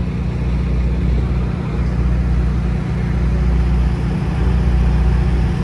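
Heavy truck diesel engines running steadily, a deep, even drone.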